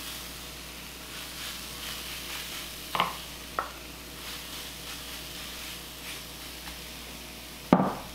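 Wooden spoon scraping shredded hash browns out of a glass bowl into a hot waffle iron, the potatoes rustling and sizzling softly on the hot plate, with two light clicks of spoon on glass about three seconds in. Near the end comes a sharp knock as the glass bowl is set down on the wooden counter.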